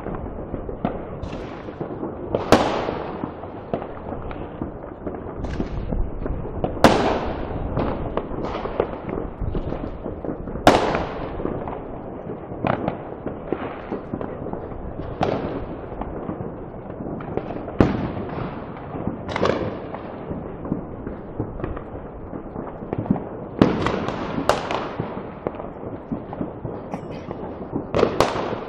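Fireworks and firecrackers going off across a city: a continuous crackle of distant explosions, with a louder sharp bang every few seconds whose sound trails off in an echo.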